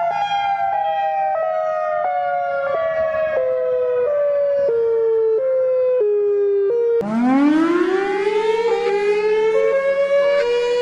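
Outdoor warning siren winding down, its tone falling in small steps for about seven seconds. It then cuts abruptly to a different siren starting up, its pitch gliding up from low and levelling off.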